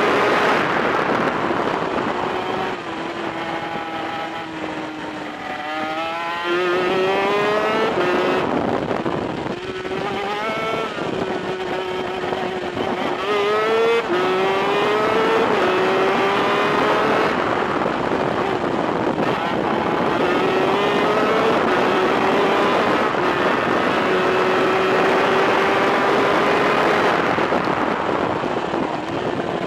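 Onboard sound of a 250cc twin-cylinder two-stroke VM superkart engine at racing speed. Its pitch falls as the kart slows for a corner, climbs again in rising steps broken by gear changes, holds high and steady at full throttle, and drops again near the end.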